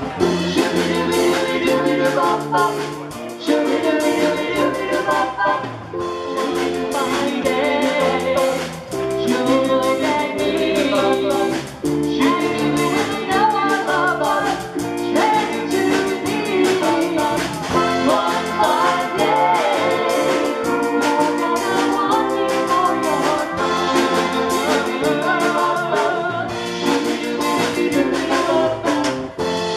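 A live pop song sung by a vocal group of two women and a man into microphones, over amplified instrumental backing with a steady beat.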